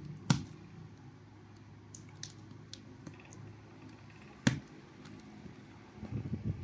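Handling noise from a replacement laptop battery pack being pressed into an open laptop's chassis: two sharp plastic clicks about four seconds apart, faint small ticks between them, and rustling near the end.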